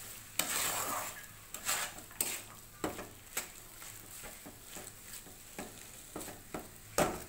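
Spatula stirring and scraping a thick mashed raw-banana mixture in a frying pan: irregular short scrapes and knocks against the pan over a light sizzle of frying.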